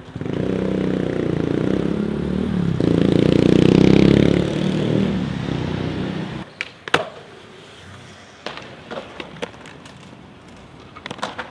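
Steady low rumble of city street traffic, swelling about four seconds in and cutting off suddenly after about six seconds. Then skateboards on stone paving: a few sharp clacks as boards snap and land, over quiet rolling.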